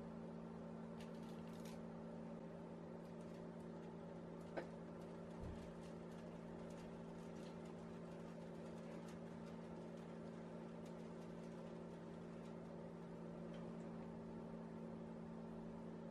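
Faint, steady low machine hum from a kitchen appliance, with a sharp click about four and a half seconds in and a soft low thud about a second later.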